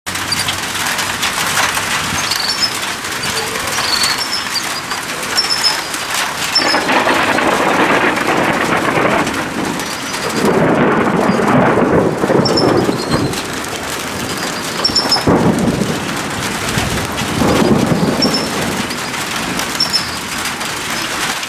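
Steady heavy rain with thunder rolling in several long rumbles, the strongest about halfway through.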